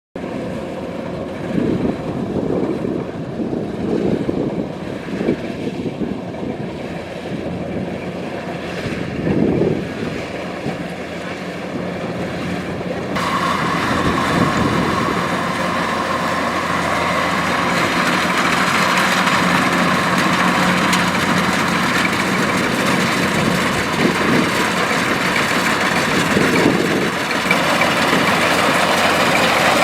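Kubota DC-105X rice combine harvester running steadily. About halfway through, a higher rushing whir suddenly joins in and the sound grows louder.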